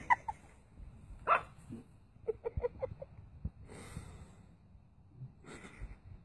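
Small puppy yapping in short, high yips, with a quick run of about five yips around three seconds in. Two short hissing noises come later.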